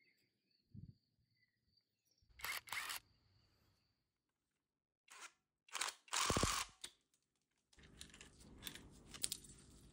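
A few short clicks and rustles of hands handling a small cordless impact wrench, the loudest about six seconds in, then a faint steady hum with light clicks.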